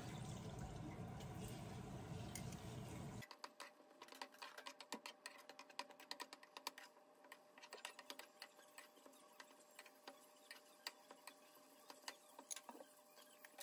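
Wooden spatula stirring scrambled eggs in a nonstick frying pan on low heat: quiet, quick light clicks and scrapes. These follow a soft steady hiss in the first three seconds, while beaten egg is being poured in.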